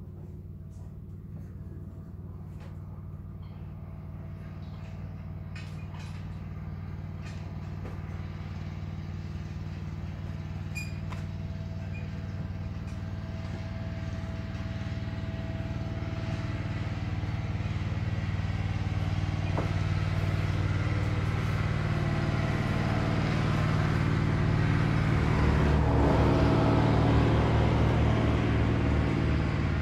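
Low, steady engine drone with a hum, growing gradually louder, with a few faint clicks in the first several seconds.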